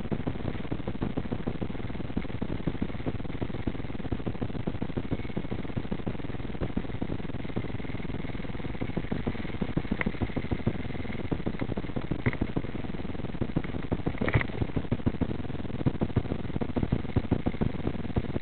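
Vehicle engine idling steadily, with a few short clicks in the second half.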